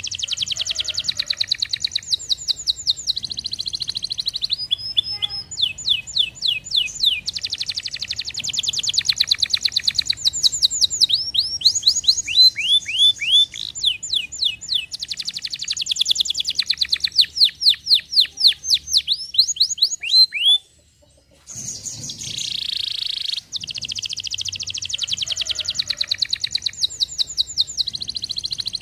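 Domestic canary singing a long, loud song of rapid trills and strings of repeated downward-sweeping whistled notes. The song breaks off briefly a little past two-thirds of the way through, then starts again.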